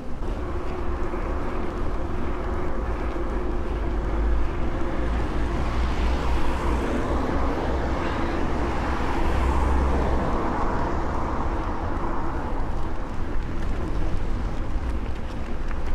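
Mountain bike rolling through town, its tyres running over asphalt and paving stones with a steady low rumble, and road traffic swelling past about halfway through.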